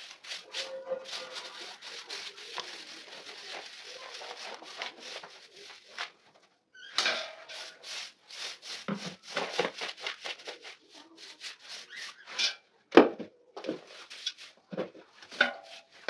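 Grass broom sweeping dirt and seed husks across the floor into a plastic dustpan, in quick repeated scratchy strokes with a short pause about six seconds in. A sharp knock about thirteen seconds in.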